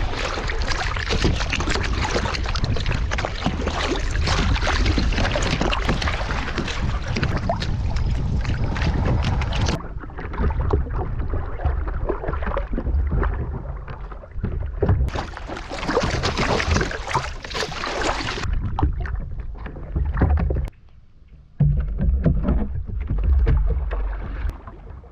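Water splashing and rushing against the bow of a moving kayak, with wind rumbling on the microphone. The sound changes abruptly several times and drops out for about a second near the end.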